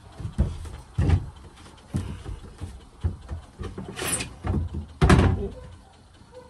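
Irregular knocks and thumps on wood as a person kneels and handles things under a plywood panel on a wooden floor frame, the loudest about a second in and about five seconds in, with a brief scrape just before four seconds.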